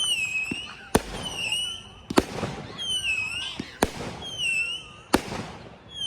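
Screaming Banshee firework cake firing a run of whistling shots. Each gives a high, falling whistle followed by a sharp bang, four bangs in all, spaced a little over a second apart.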